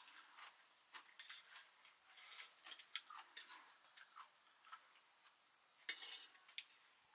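Quiet eating sounds: forks clicking and scraping on steel plates while chowmein noodles are slurped, with a louder slurp about six seconds in.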